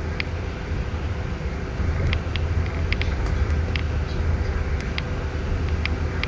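A city bus heard from inside its cabin as it drives: a steady low engine and road rumble with a faint steady hum, and scattered light clicks and rattles.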